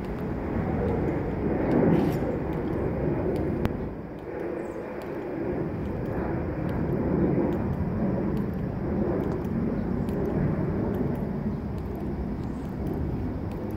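A steady outdoor rumble of background noise, swelling around two seconds in, with a faint murmur of voices.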